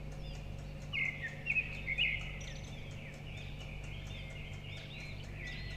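Small birds chirping: many short, rising-and-falling calls, a few louder ones a second or two in, over a low steady hum.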